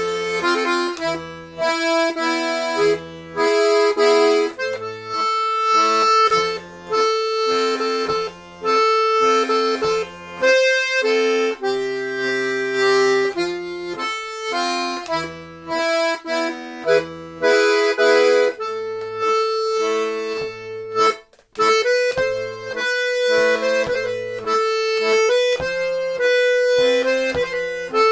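Saltarelle diatonic button accordion playing a tune: a melody of held notes over alternating bass notes and chords. It drops out briefly about 21 seconds in, then carries on.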